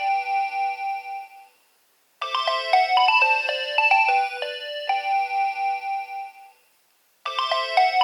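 Nokia 2300 ringtone: a short electronic melody of clean beeping notes from the phone's speaker, looping with a brief pause before it starts over, twice.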